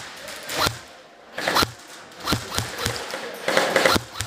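Airsoft guns firing: sharp, irregular cracks spaced from a fraction of a second to about a second apart, bunching into a quick burst near the end.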